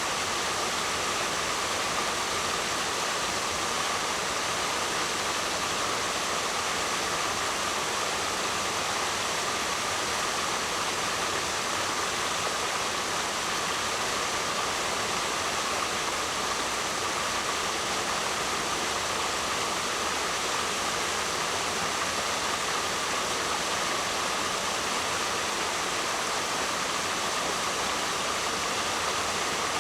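Waterfall: a steady rush of falling water, even and unbroken, with a bright hiss.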